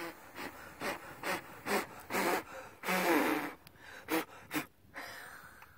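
A woman blowing a string of short, sharp puffs of breath about every half second to put out a marshmallow burning on a roasting stick, with a couple of longer voiced gasps among them.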